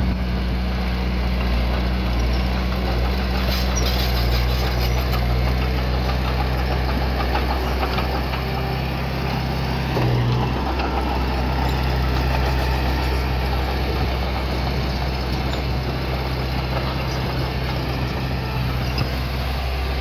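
Diesel engine of a small bulldozer or mini dump truck running steadily at a low, even pitch, with a brief change in its note about ten seconds in.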